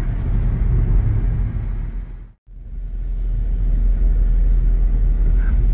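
Car driving along a road: a steady low rumble of engine and tyre noise. It fades out to silence for a moment about two and a half seconds in, then returns.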